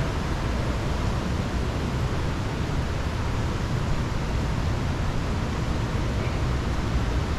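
Steady rush of creek water through a narrow rock gorge: a continuous even hiss with a deep rumble underneath.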